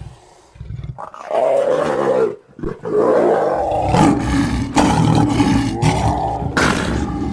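Big cat roaring and snarling. One raspy roar comes about a second in, and a longer, louder run of roars follows from about three seconds in.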